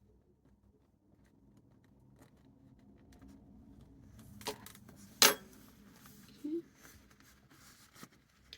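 Small hard objects clattering on a work surface: two sharp clicks about halfway through, the second the loudest, then a few fainter ticks, over a faint low hum.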